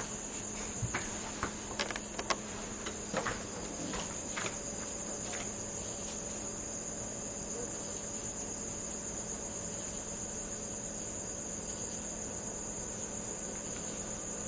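Crickets trilling in one steady, high, unbroken chorus, with a few light knocks in the first five seconds.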